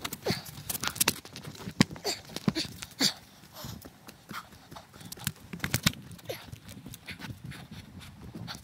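Footsteps walking on a dirt forest trail strewn with dry leaves and twigs, with irregular sharp crackles and crunches as each step lands.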